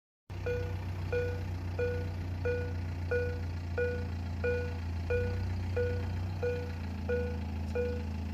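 Level crossing warning bell ringing, a single electronic ding repeated evenly about one and a half times a second, over a steady low engine hum. It starts abruptly just after the beginning.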